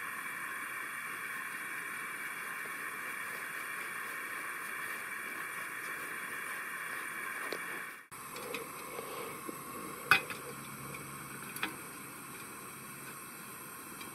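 Propane burner hissing steadily, its air intake set to give a yellow flame. After a sudden cut about eight seconds in, a canister stove burns quietly under a stainless steel pot, with a few sharp metal clinks, the loudest about two seconds after the cut.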